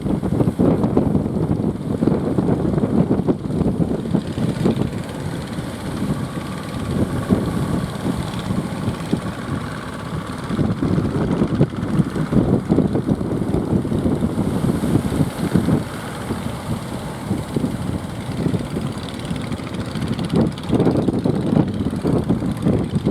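Strong gusty wind buffeting the microphone, with a fishing boat's motor running faintly underneath.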